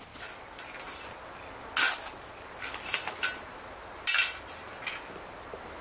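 A shovel scraping and scooping into dirt beside a wheelbarrow: about five short, sharp scrapes, the loudest about two and about four seconds in, over faint outdoor background.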